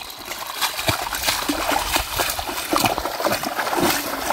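Hand net being scooped and dragged through shallow muddy water: irregular wet splashes and sloshing.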